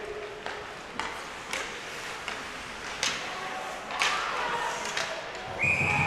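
Ice hockey play in an arena: scattered sharp clacks of sticks and puck. Near the end a steady high tone sets in over a louder surge.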